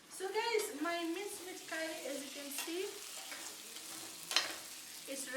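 Mince meat curry sizzling in a pot while being stirred, the spoon scraping the pot with wavering squeaks during the first few seconds. A sharp knock about four seconds in.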